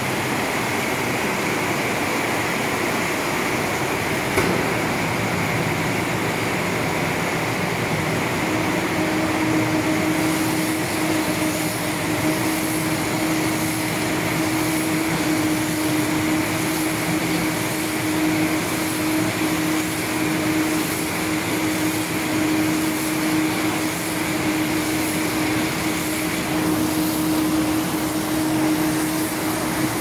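Silage round baler and bale wrapper running under load: a steady mechanical hum and rattle, with a low steady hum that comes in about a third of the way through and a high whine that stops near the end.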